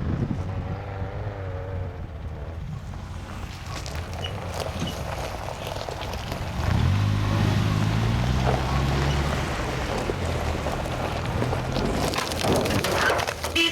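A vehicle's engine running under wind noise on the microphone, revving up and getting louder about seven seconds in, with rougher noise near the end.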